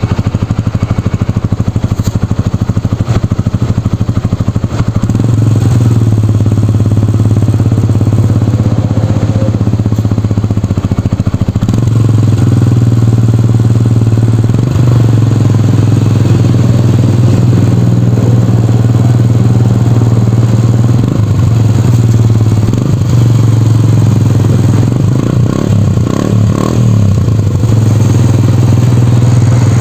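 Yamaha YTX 125 single-cylinder four-stroke engine running steadily through a homemade lightweight bottle-pipe exhaust muffler, its note shifting a few times.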